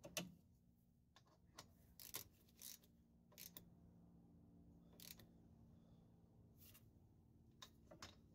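Faint, irregular metallic clicks and short scrapes of a socket and torque wrench being fitted to and tightening a brake caliper bolt, over a low steady hum.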